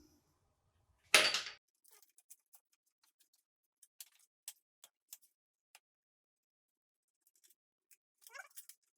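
Engine timing parts being handled: one short scrape or clatter about a second in, then scattered light clicks. A faint wavering call near the end.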